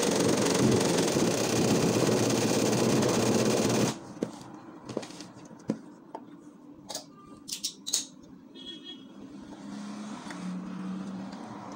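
Sewing machine running steadily as it stitches embroidery, stopping abruptly about four seconds in. After it stops, scattered light clicks and fabric handling.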